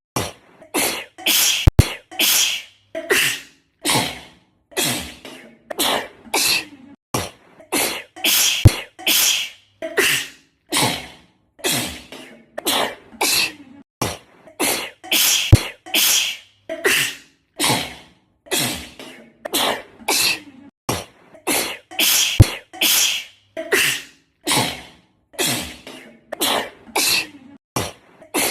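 A girl sneezing over and over in a rapid fit, about one to two sneezes a second, each a short sudden burst with a breathy hiss. The same run of sneezes recurs about every seven seconds, an edited loop.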